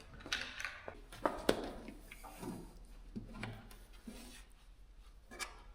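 Scattered light clicks, taps and rubbing from hand work: screws being fitted through a cardboard-backed sound deadening pad into a Jeep firewall, with the sharpest knocks about one and a half seconds in.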